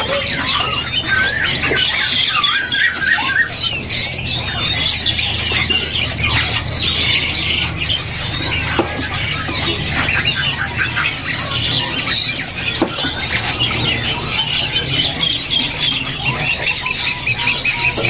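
Caged male green leafbirds (cucak ijo) singing together: a dense, continuous run of high chirps and whistles that glide up and down, over a steady low hum. They are untrained 'bahan'-grade birds already giving their 'ngetruk' calls.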